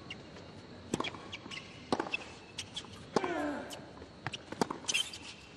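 Tennis rally on a hard court: sharp racket strikes and ball bounces, one every second or so. A player grunts with a falling pitch on a shot about three seconds in.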